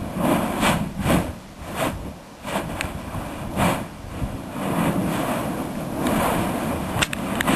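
Mount Yasur's volcanic vent erupting: a rough, rumbling roar that surges and fades as ash and glowing lava bombs are blasted out of the crater, with a few sharp clicks near the end.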